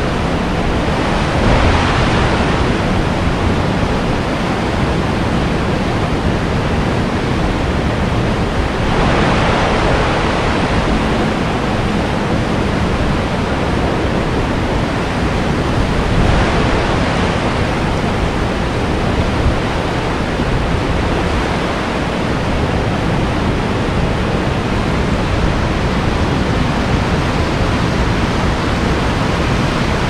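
Kern River water rushing: a loud, steady roar of noise, swelling briefly three times.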